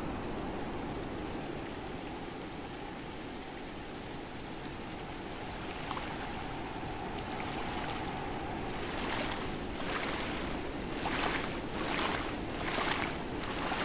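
Footsteps wading through shallow floodwater: about six splashing steps, roughly one a second, start about two-thirds of the way in. Under them runs a steady rush of moving water.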